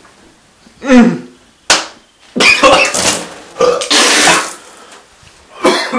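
A throaty gurgle through a mouthful of water, a sharp click, then two long hissing sputters as the water is spat out, with another short throaty sound near the end.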